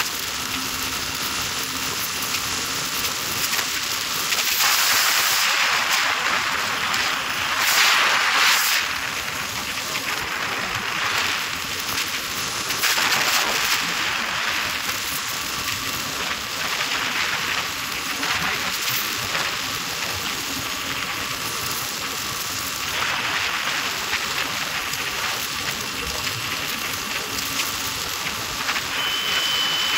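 Steady rushing hiss of wind noise from riding a motorcycle at speed, swelling louder a few times.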